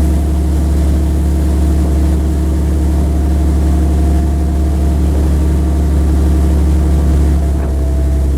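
Large tour speedboat's engines running steadily with a deep drone; the engine note shifts slightly near the end.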